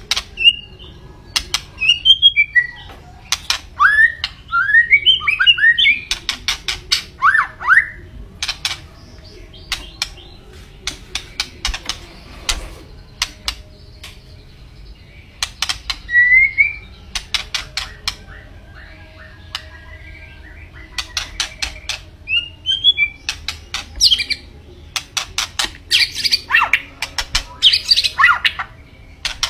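White-rumped shama singing: runs of sharp, harsh clicking notes mixed with short whistled phrases that slide up and down.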